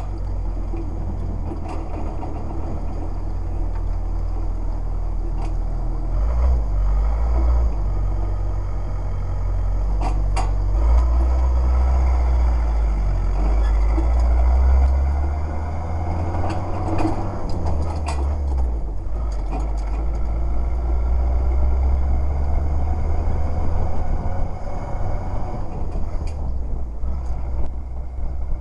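A small vehicle's engine running as it drives slowly, with a heavy low rumble from the camera mounted on its rattling metal body. A few sharp clicks or rattles come between about ten and nineteen seconds in.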